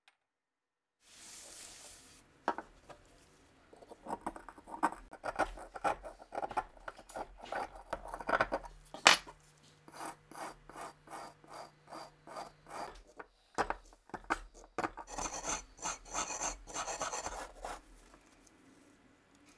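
Stiff hand brush scrubbing a rusted steel Walther P38 part against a wooden bench in quick back-and-forth strokes, about two to three a second at its steadiest, loosening black rust scale. A short hiss comes about a second in, and one sharper knock comes partway through.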